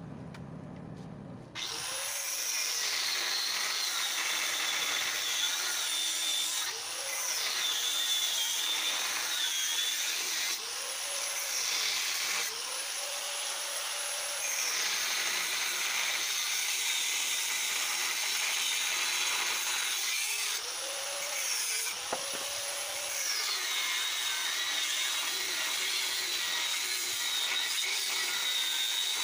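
Electric angle grinder cutting metal. Its high whine drops in pitch each time the disc is pressed into the cut and rises again when eased off, several times over; it starts about a second and a half in.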